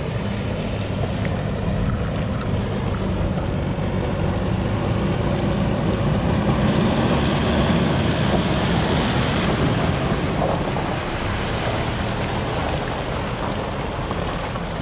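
A Toyota 4WD's engine running as it drives through a shallow river crossing towing a camper trailer, with water splashing and swishing around the tyres. The sound grows louder as the vehicle passes, peaking around the middle, then eases off.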